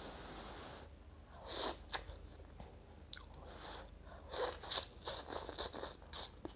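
Close-miked eating of rice vermicelli (bihun) soup: a soft breathy hiss for about the first second, then clusters of slurps and wet chewing sounds.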